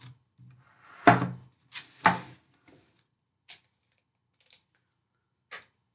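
Two knocks about a second apart as a plastic milk bottle and other groceries are put down on a table, then a few faint clicks of packaging being handled.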